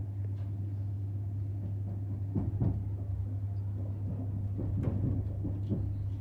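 Passenger train interior while running: a steady low hum with scattered knocks and rattles, a cluster about two and a half seconds in and more between about four and a half and six seconds.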